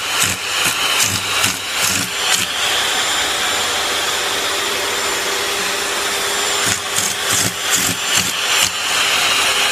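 Cat rubbing its face and mouth right against the microphone: irregular scraping knocks over a steady hiss, thickest at the start and again from about seven seconds in.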